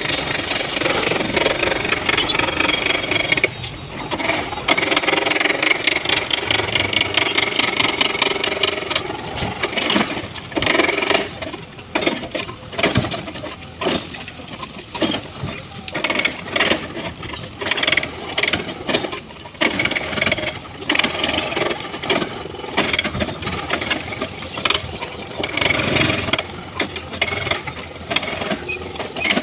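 Diesel engine of a hydraulic excavator running steadily while loading stone into a dump truck. From about ten seconds in, repeated knocks and rattles of rock break over the engine.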